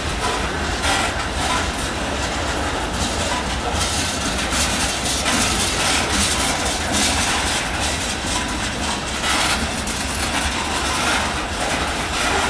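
Freight train of covered hopper cars rolling slowly past close by: steel wheels on rail, a steady rumble with clickety-clack and a hiss that swells every second or two as the wheel sets go by.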